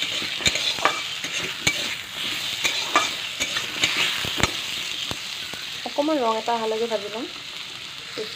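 Potato wedges sizzling in hot oil in a metal kadai, with a spatula knocking and scraping against the pan as they are stirred: sharp taps every half second or so through the first half, then the sizzle alone.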